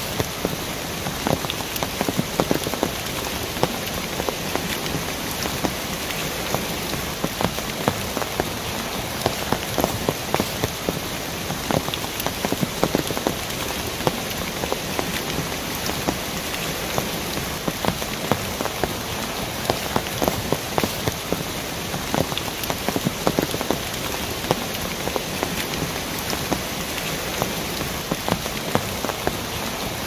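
Mountain stream cascading over rocks: a steady rush of water with many small splashes and drips throughout.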